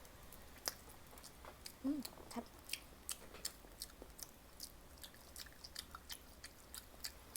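Quiet chewing of fried Spam, a run of small, irregular wet mouth clicks and smacks, several a second.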